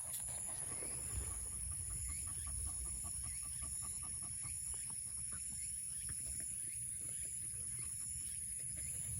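Shiba Inu snoring in its sleep: a low snore with a rapid flutter lasting several seconds, over a steady faint high-pitched whine.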